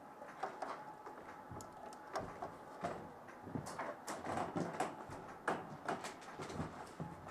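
Footsteps on a gravel floor with gear rustling, an irregular run of short crunches that gets busier and a little louder about halfway through.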